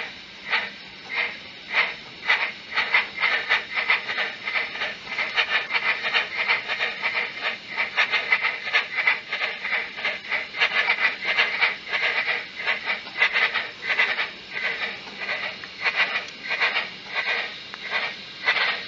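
Steam-exhaust chuffs from the DCC sound decoder of a Bachmann Double Fairlie model locomotive, played through its small onboard speaker. The beats start slow and quicken steadily as the locomotive pulls away and gathers speed.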